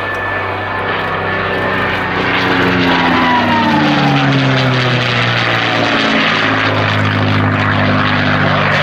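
P-51D Mustang's Packard Merlin V-12 engine and propeller flying past close overhead, the engine note dropping in pitch about three to five seconds in as it passes, then running on steadily.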